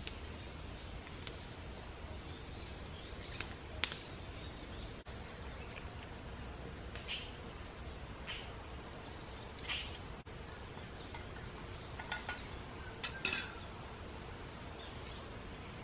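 Forest ambience: a steady low background rumble with scattered short bird calls. A few sharp clicks or knocks come through, the loudest about four seconds in and another cluster near the end.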